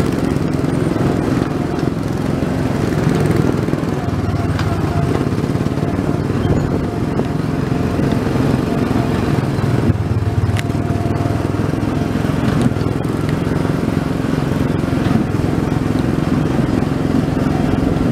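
Small gasoline engine of a go-kart-style theme-park ride car running steadily while being driven, heard from the car's seat.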